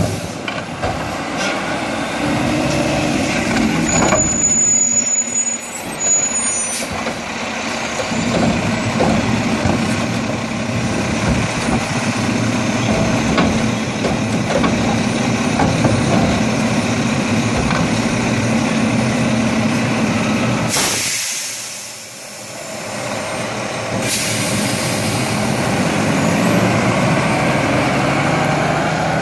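Mack LEU garbage truck's diesel engine running steadily while its Curotto Can automated arm lifts and empties a cart. Two loud bursts of air brake hiss come about three-quarters of the way through.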